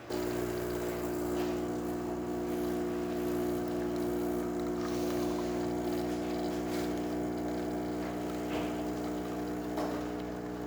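Gaggia Velasca Prestige espresso machine's vibratory pump running steadily as it pushes water through the brew unit for a test shot, a constant buzzing hum that starts abruptly and cuts off near the end.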